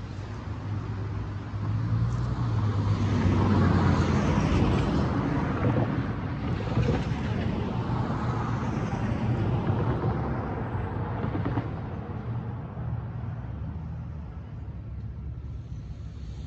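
Street traffic: cars passing by, the sound swelling over a few seconds and then slowly fading, over a low steady engine hum.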